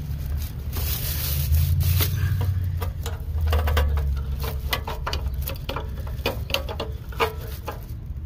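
Scattered clicks, scrapes and rustles from handling a Hondata S300 ECU and its wiring-harness connector while it is plugged in, over a low rumble.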